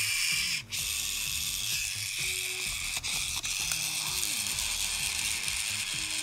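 Hot Wheels Speed Chargers toy charger whirring and ratcheting as the car is pressed down on it to charge, its plastic gear mechanism spinning steadily. Two sharp clicks come about three seconds in.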